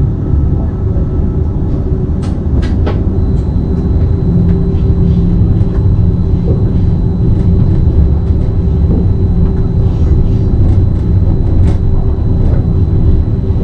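BLS RABe 515 double-deck electric multiple unit running along the track: a steady low rumble of the running gear, with a few sharp clicks and a thin, steady high whine from about three seconds in.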